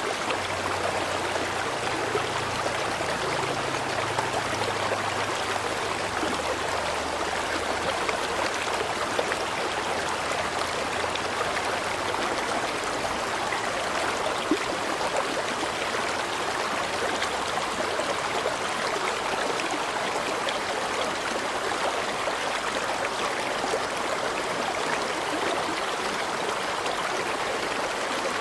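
Flowing river water, a steady even rush of running water.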